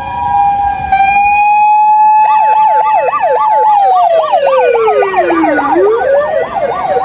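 Japanese emergency vehicle sirens. A motor siren holds a steady high wail, and about two seconds in an electronic siren starts a fast up-and-down yelp of about three sweeps a second, as used when crossing an intersection. Partway through, the motor siren winds down to a low growl and then spins back up.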